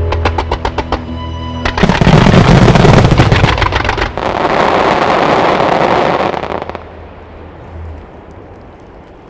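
A starmine fireworks barrage over a held musical chord: rapid crackling bursts, then a dense volley of loud firework explosions about two seconds in, followed by a long hissing crackle that dies away about seven seconds in.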